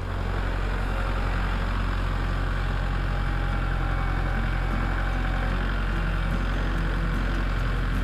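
Kubota L4701 tractor's four-cylinder diesel engine running steadily, a low, even hum with no change in speed.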